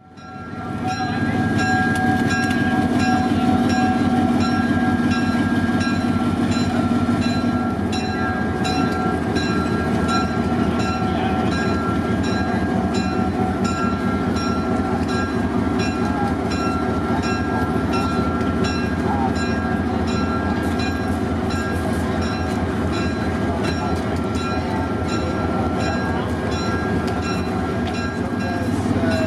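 Diesel-electric locomotive running steadily, with a steady high whine over the engine note.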